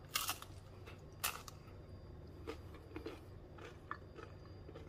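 A crisp fried-corn tostada shell bitten, with two sharp crunches, then chewed with quieter crunching.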